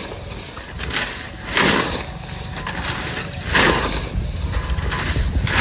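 A long-handled cutting blade, a datar, slicing through leafy green fodder plants. Each stroke makes a rustling, tearing swish, three of them about two seconds apart, over a low steady rumble.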